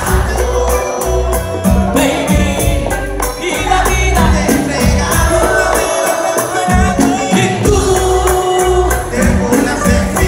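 Live Latin music played loud through a concert sound system, heard from within the crowd. It has a steady, pulsing bass beat, regular percussion and singing.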